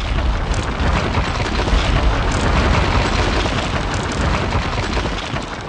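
Sound effect of a concrete wall cracking and crumbling: a dense, rumbling crash of breaking rubble that starts abruptly and eases off slightly near the end.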